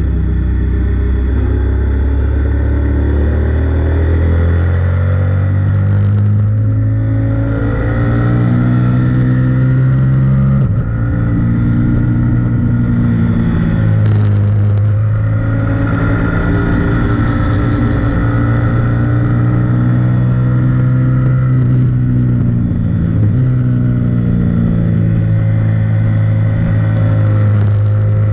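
Sport bike engine at speed on a race track, revving up through the gears: the engine note climbs, drops suddenly at each shift, then climbs again, several times. A steady rush of wind runs underneath.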